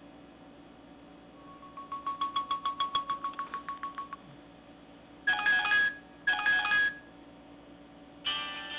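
Electronic ringtones playing from a Nokia 130 phone's loudspeaker. A fast beeping pattern of about eight beeps a second runs for a couple of seconds, then a short electronic chime sounds twice, and another chime starts near the end.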